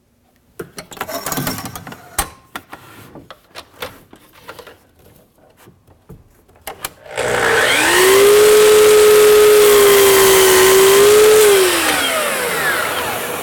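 Small taps and clicks as the crown molding is handled at the saw, then a sliding miter saw's motor starts about seven seconds in, rising to a steady whine as the blade cuts a miter through the crown molding. After the cut the motor is switched off and the blade winds down with a falling pitch near the end.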